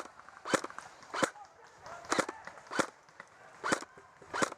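Footsteps on dry ground and brush, a crunching step about every three-quarters of a second at a walking pace.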